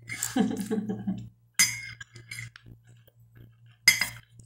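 Fork clinking against a clear glass plate, with two sharp clinks, about one and a half and four seconds in.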